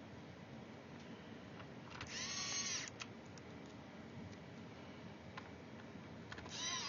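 Small electric screwdriver whining as it spins up, drives a screw for about a second and winds down, then starting again near the end, as the screws of a laptop's bottom case are tightened.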